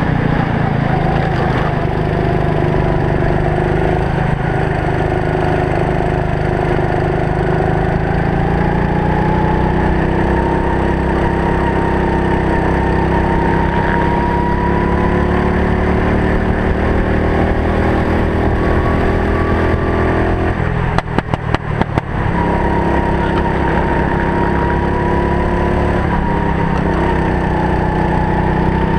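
Go-kart engine running hard under a helmet camera, its pitch rising and falling as the kart speeds up and slows for corners. About 21 seconds in, the sound breaks up for about a second in a quick run of short cuts.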